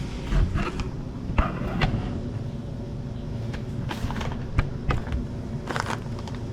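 Scattered clicks, knocks and brief rustles of things being handled, over a steady low background rumble.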